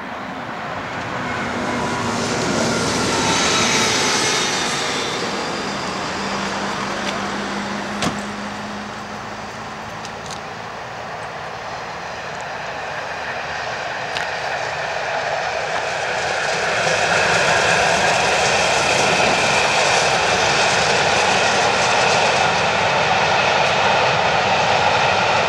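60163 Tornado, an LNER Peppercorn A1 Pacific steam locomotive, passing with its train while more or less coasting, which is believed to be due to a badly clinkered fire. Its rumble swells about four seconds in and eases off, then the coaches rolling by make a louder, steady rush from about seventeen seconds on. A single sharp click comes about eight seconds in.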